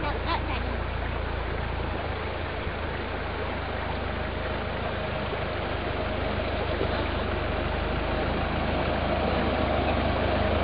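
Land Rover Discovery 4x4 crawling down a steep track at low engine revs, running steadily and growing gradually louder as it comes closer.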